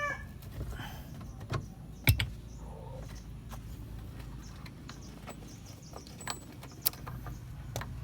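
Scattered sharp clicks and knocks of metal seat hardware and tools being handled while a car's rear seat is unbolted, the loudest knock about two seconds in, over a low steady hum.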